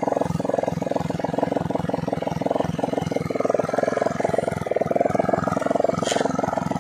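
A small engine running steadily, with a fast, even pulse. A short high-pitched sound cuts in near the end.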